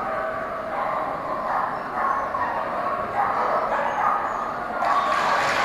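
A dog barking repeatedly, about two barks a second, while running an agility course. Near the end, applause starts.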